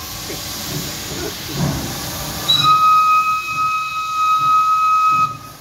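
Steam locomotive AWE 22907, a 2-8-2, hissing steam as it moves off. About two and a half seconds in it sounds its steam whistle in one steady blast of nearly three seconds, which cuts off sharply near the end.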